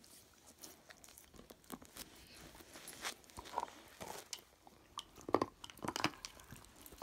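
Siberian husky gnawing on a chew bone: irregular crunching and clicking bites, sparse at first, then louder and more frequent in the last couple of seconds.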